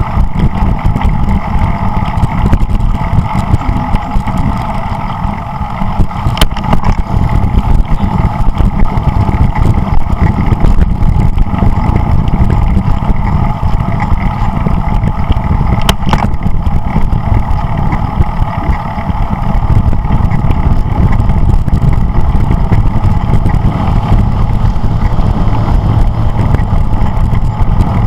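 Wind buffeting the microphone of a camera riding along a road, over steady road noise, with a couple of sharp clicks.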